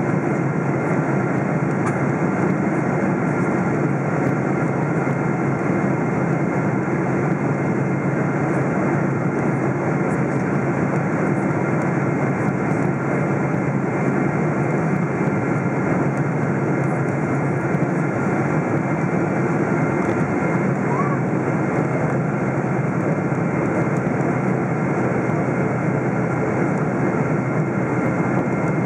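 Steady in-cabin noise of a Boeing 777-200 in flight, heard from a window seat: the hum of its GE90 turbofan engines blended with rushing airflow, with a faint steady whine and no change in thrust.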